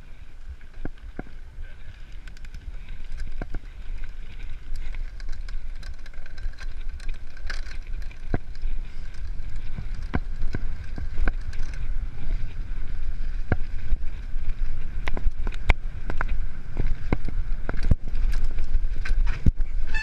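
Mountain bike ridden along a dirt singletrack, heard from a camera on the bike: low wind rumble on the microphone that grows louder as the speed picks up, with frequent sharp clicks and rattles of the bike over bumps.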